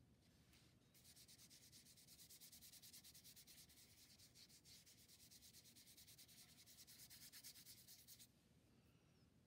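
Paintbrush bristles scrubbing paint onto paper in quick back-and-forth strokes, a faint scratchy rasp that starts about a second in and stops about a second before the end.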